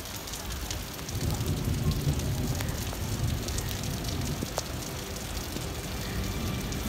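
Steady rain pattering on a wet station platform. A low rumble swells about a second in and eases off a few seconds later.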